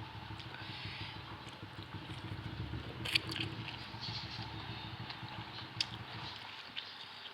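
Kitchen handling sounds: scraping and crisp clicks, with a sharper click about three seconds in and another near six seconds, over a low rumble that dies away near the end.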